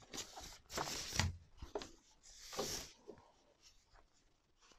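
Light rubbing and rustling from a gaming headset and its cables being handled over plastic wrapping, in a few short bursts about a second in and again near two and a half seconds, then almost quiet.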